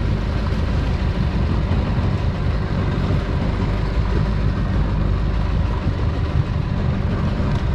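Jet ski engine running at low speed, a steady low drone with no change in pitch.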